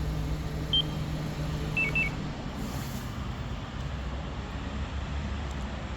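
Samsung SM6's engine idling, then shutting off about two seconds in on a remote-start system's stop command. Short high electronic beeps sound about a second in and twice more just before the engine stops.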